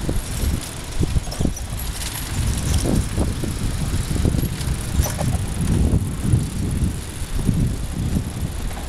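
Ride noise of a bicycle rolling along a paved cycle path: a continuous low rumble with irregular surges of wind buffeting the microphone.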